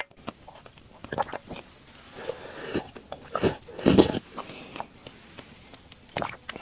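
Close-miked eating sounds: a person biting and chewing soft glutinous rice balls (tangyuan) in sweet soup, in several short bursts, the loudest about four seconds in.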